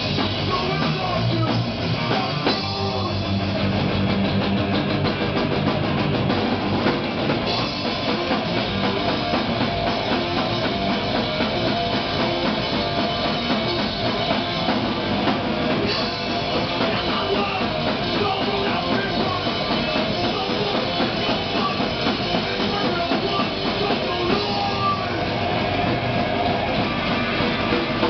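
Live rock band playing loud and without a break: electric guitar, bass and a full drum kit.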